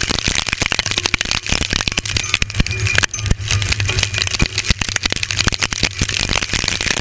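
Wind-driven debris and rain battering the camera inside a tornado: a dense, rapid barrage of cracks and rattles over the noise of the wind, with a low hum that comes and goes.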